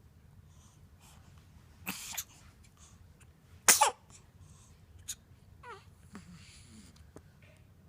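Baby hiccupping: a short hiccup about two seconds in and a louder, sharper one near the middle, followed later by a faint little falling squeak from the baby.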